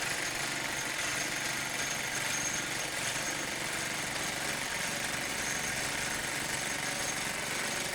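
An engine running steadily, a constant drone.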